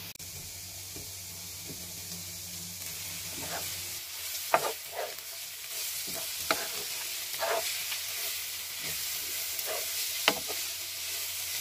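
Shredded cabbage and carrot frying in a pan with a steady sizzle. From about four seconds in, a spatula stirs the vegetables, scraping and knocking against the pan several times.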